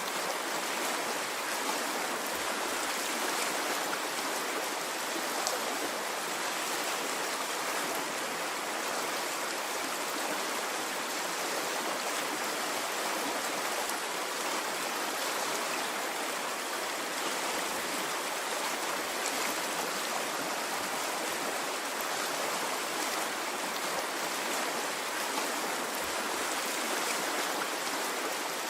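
Water stream flowing steadily: a constant, even rush of running water with no breaks or swells.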